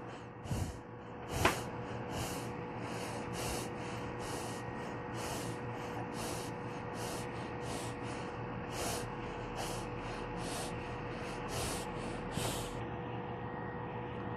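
Short hissing bursts repeated about twice a second over a faint steady hum, stopping about a second and a half before the end.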